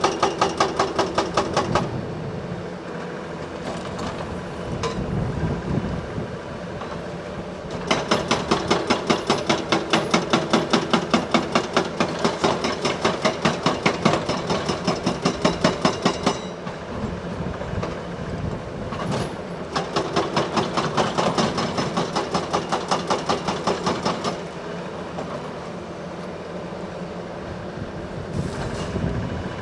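Volvo EC380DL excavator's hydraulic breaker hammering rock in rapid, evenly spaced blows, in three bursts: one ending about two seconds in, a long one from about eight to sixteen seconds, and a shorter one from about twenty to twenty-four seconds. Between bursts the machine's diesel engine runs on steadily.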